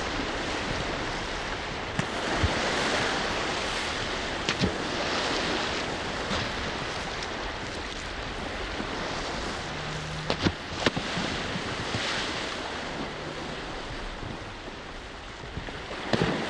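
Open-sea ambience heard from a small boat: waves washing and wind buffeting the microphone, with a few sharp knocks.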